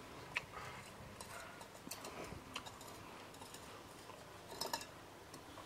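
Faint outdoor background with scattered sharp clicks and ticks: one sharp click about half a second in and a quick cluster of clicks near the end.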